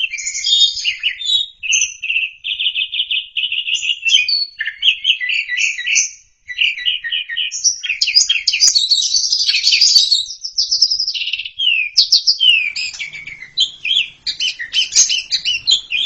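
Asian pied starling (jalak suren) singing a long, varied song of rapid repeated chattering notes and whistled glides, with a brief break about six seconds in.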